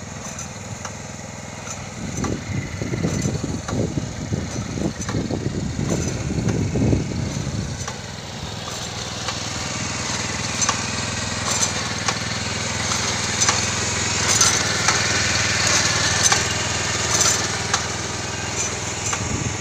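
Small engine of a ride-on 'Vegi Rider' vegetable transplanter running steadily as it plants, with repeated sharp clicks from its planting mechanism in the second half.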